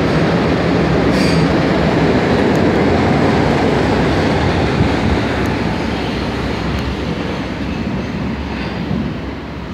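Munich U-Bahn train pulling out of an underground station, its wheels and motors running loud along the platform, then fading away over the last few seconds as the train leaves.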